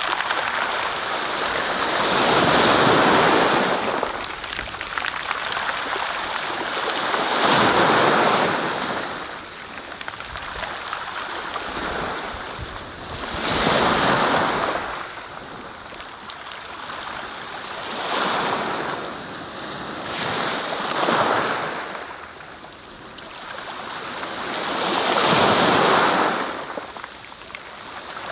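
Surf: waves washing in and breaking, the rush swelling and fading every five seconds or so.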